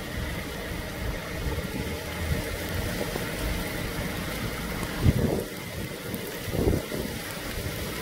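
Fire engine engine idling steadily, with wind buffeting the microphone in two strong gusts, about five seconds in and again near seven seconds.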